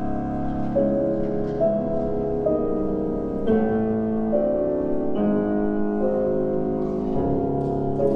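Slow instrumental background music, piano-like held notes changing about once a second.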